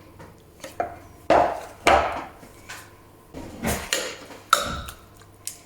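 A spoon knocking and scraping against a container as thick blended marinade is spooned out onto diced chicken: a series of irregular knocks, several followed by a short scrape.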